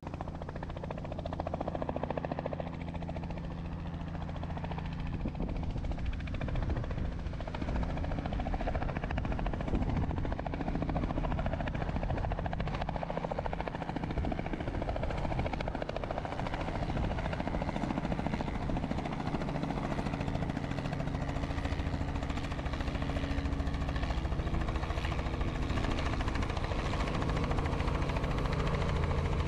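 Robinson helicopter on a slow, steep approach to land, its steady rotor and engine drone growing gradually louder as it comes nearer.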